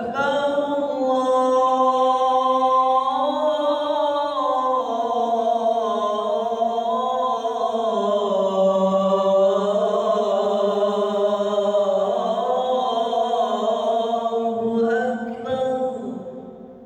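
A muezzin with a cold and flu sings one long, drawn-out, ornamented phrase of the adhan (Islamic call to prayer) in a single breath, rising and falling in pitch, and fades out near the end.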